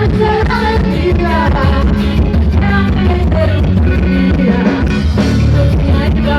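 Forró band music with a singing voice over heavy bass and a steady beat.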